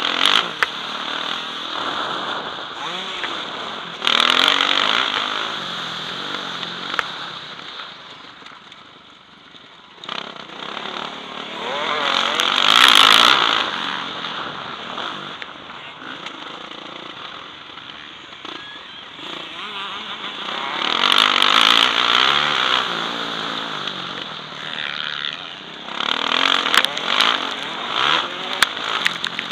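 Motocross bike engine heard from a helmet-mounted camera, revving hard in surges as the rider opens the throttle and easing off between them, with wind noise on the microphone. Sharp rattles and knocks come over it near the end.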